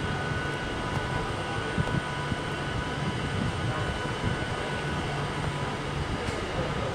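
A train's engine running steadily with a low throb, with faint steady whining tones above it.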